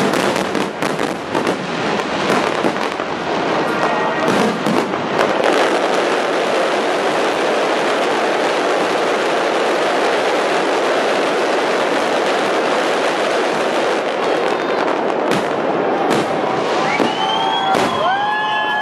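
Aerial fireworks in a dense barrage: a volley of separate booms, then many shell bursts and crackles merging into a continuous din for about ten seconds, then a few separate loud bangs. Near the end the crowd starts cheering.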